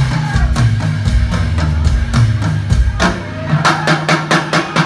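Live rock band playing, with electric guitar, bass and drum kit. About three seconds in the bass drops out, leaving quick, evenly spaced hits.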